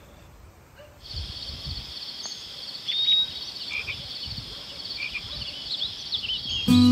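A steady high-pitched chorus of insects comes in about a second in, pulsing regularly, with a few short bird chirps over it. Background music with a bass line cuts in near the end.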